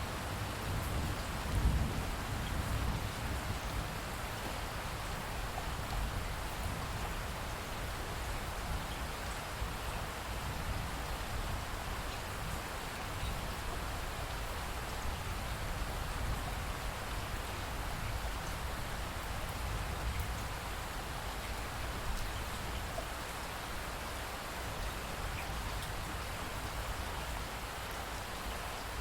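Steady rain falling in an even hiss, with a deeper low rumble in the first few seconds.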